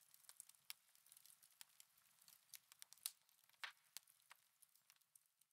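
Faint, sparse crackling and popping of a log fire, a few irregular snaps a second, the loudest about three seconds in.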